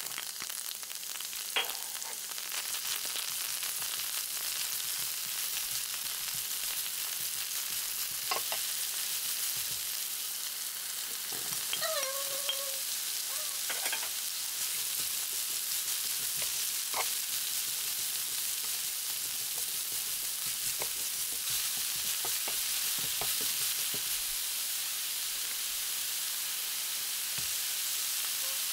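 Sliced onion and then mushrooms frying in hot oil in a pan: a steady high sizzle, with scattered clicks and taps and a brief squeak about twelve seconds in.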